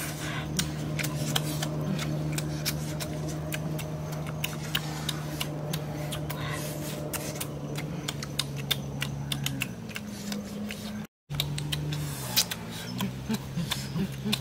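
Quick, irregular clicks and crackles of eating crisp grilled fish with the hands, over a steady low hum that shifts and wavers in pitch in the last few seconds. The sound drops out briefly about eleven seconds in.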